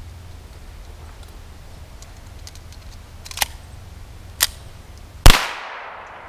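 Faint clicks of .22 cartridges being pressed into a pistol magazine, two sharp metal clicks from readying the Ruger Mark III .22 LR pistol, then a single loud .22 pistol shot about five seconds in, with an echo trailing off.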